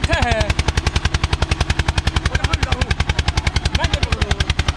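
Eicher 241's single-cylinder diesel engine running hard under heavy load as the tractor drags two disc harrows, a steady, loud beat of about eleven firing strokes a second.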